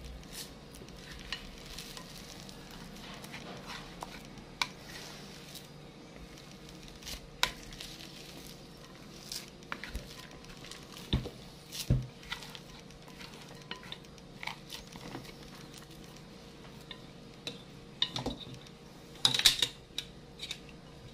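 White plastic rice paddle stirring and scraping a damp, crumbly graham cracker and condensed milk mixture in a glass bowl, with scattered light taps and knocks against the glass. Near the end, a louder brief clatter of a metal can opener and knife being moved on the plate.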